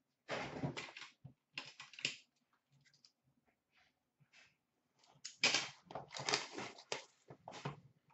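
Trading cards and a cardboard hobby box being handled on a glass counter: rustling, sliding and light clicking in two short spells, with a quiet gap of about three seconds between them.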